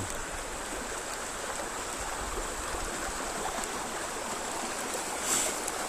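Small river running, a steady rush of flowing water.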